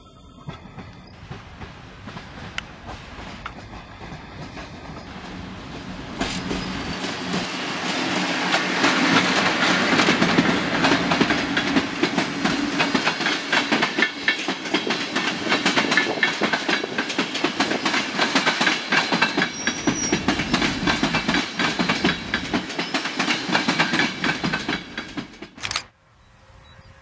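Intercity passenger train hauled by a PKP Intercity EP09 electric locomotive passing close by, the coach wheels clattering rhythmically over the rail joints. It builds from a quieter approach to a loud, steady clatter after about six seconds and cuts off abruptly near the end.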